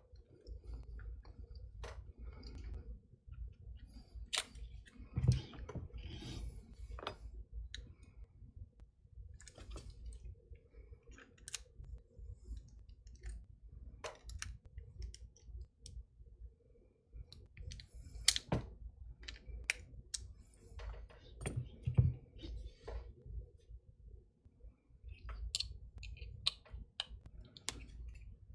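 Irregular small metal clicks and taps of a tool working at a Master Lock padlock to free a stuck lock cylinder, with duller knocks about 5 seconds in and again about 22 seconds in.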